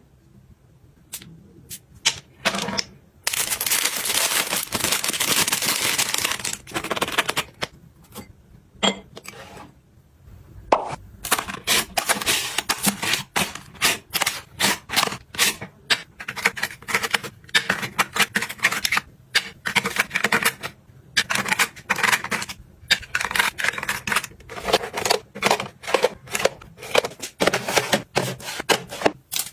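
Close-up handling of plastic packaging and small cosmetic containers: a stretch of crinkling, then many quick runs of sharp clicks and taps.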